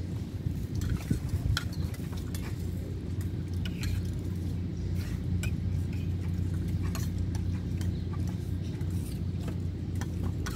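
Spoon clinking and scraping on a plate while eating, in short scattered ticks, over a steady low hum.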